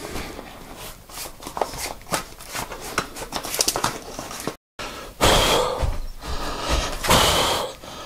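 Rubber tyre bead rubbing and clicking against a road wheel rim as the tyre is worked on by hand. After a cut, a few heavy puffing breaths from a man out of breath after a very hard tyre fit.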